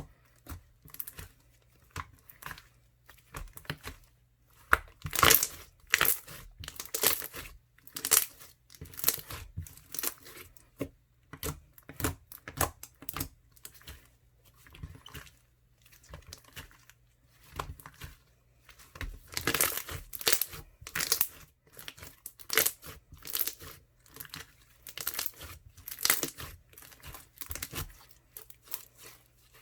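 Crunchy slime made with Doctor's Crunch clear glue, worked by hand, crackling and popping its trapped air bubbles in a series of bursts about once a second.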